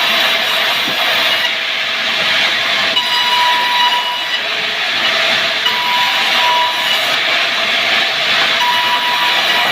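Sawmill wood saw running steadily, with a thin whine that rises out of the noise three times for about a second each.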